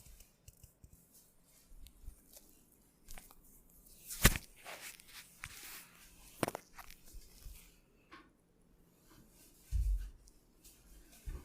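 Hands rubbing and kneading skin during a massage, with a sharp click about four seconds in, a second one about two seconds later, and a dull thump near the end.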